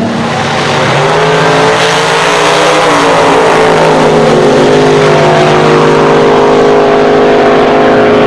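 Drag-racing cars' engines running hard at high revs, a loud, steady engine note of several tones together. Its pitch shifts in the first three seconds, then holds steady.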